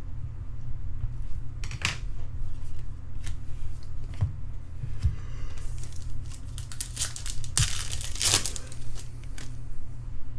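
Trading card pack wrappers being torn open and crinkled, in several crackling bursts about two seconds in and again in the second half, over a steady low hum.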